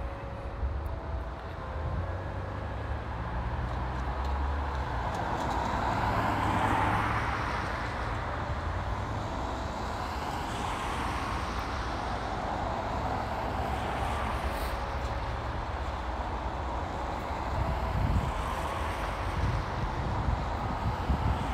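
Street traffic: cars passing by, their tyre noise swelling and fading about seven seconds in and again around eleven seconds, over a steady low rumble.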